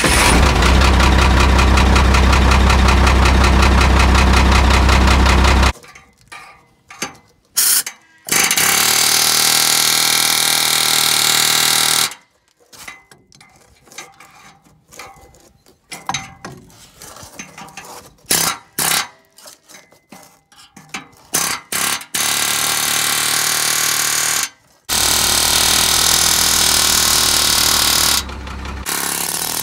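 Pneumatic air hammer with a chisel bit hammering on a rusted, seized exhaust pipe joint at the muffler to break it loose. It runs in bursts: a long one of about six seconds at the start, another of about four seconds, short taps in between, and a last burst near the end.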